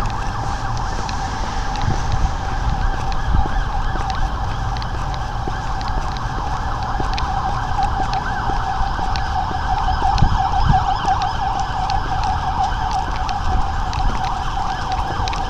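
Ambulance siren sounding continuously as a rapid, wavering wail, with a low rumble underneath.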